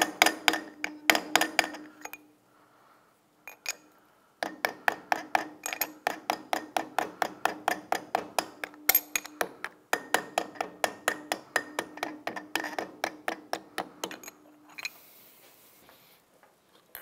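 Light hammer tapping rapidly on a 3/8 extension, about five taps a second with a steady metallic ring under them, driving the wrist pin out of a Honda CRF450R piston. The taps run for about two seconds, pause, then go on for about ten seconds more and stop.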